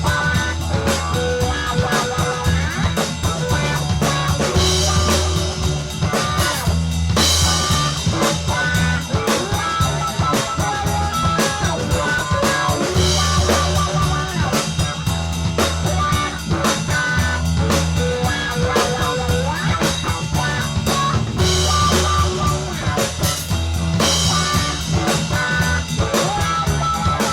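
Background rock music with drums, electric guitar and bass and a steady beat.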